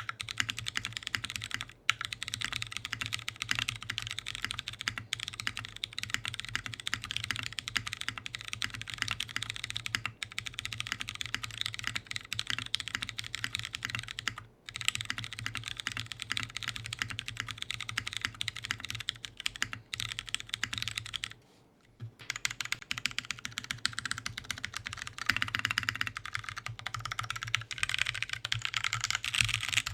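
Fast, continuous typing on a custom top-mount mechanical keyboard with a brass-weighted case, aluminium plate, lubed and filmed Cherry Hyperglide Clear tactile switches and DCS-profile keycaps. The typing breaks off for a few brief pauses, the longest about two-thirds through.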